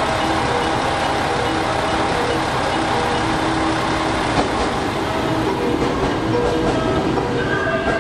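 Music horn of an arriving JR West commuter train: a short melody of stepped electronic notes over the rumble of the train running into the platform.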